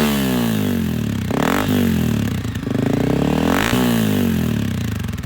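2022 Honda CRF250F dirt bike's single-cylinder four-stroke engine with a Pro Circuit exhaust, blipped twice from idle and falling back to idle after each rev. It is very loud.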